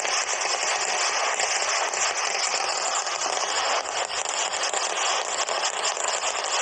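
Festival fireworks going off in a dense, rapid barrage, the many crackling explosions running together into one continuous crackle.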